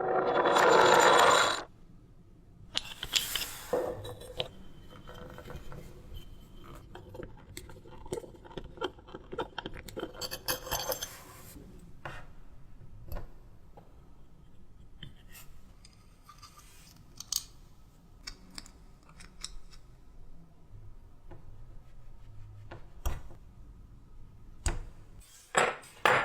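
Hand tools and small metal parts clicking, tapping and scraping on a tin toy locomotive, with a loud rasping burst at the very start and another about ten seconds in.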